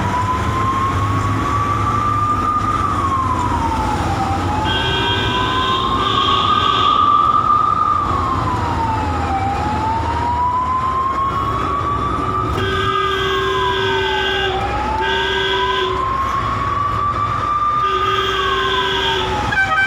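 Ambulance siren wailing in a slow cycle, rising over three or four seconds and then dropping more quickly, four times over, above a steady engine and road rumble. A separate steady tone cuts in and out in stretches, several times.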